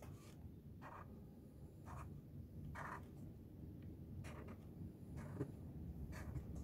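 Faint scratching of a pen drawing lines on paper while a rectangle is drawn: a handful of short strokes spread over several seconds.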